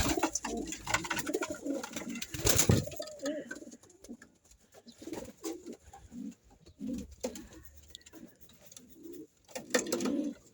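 A flock of domestic pigeons cooing, several birds at once, with a few sharp knocks in the first three seconds. The cooing thins out to scattered calls after about three and a half seconds.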